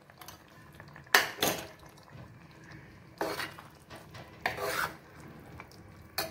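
Steel ladle stirring and scraping through a wet mix of tomato gravy and flat beans in an aluminium pot, in about four short separate bursts of metal scraping on metal.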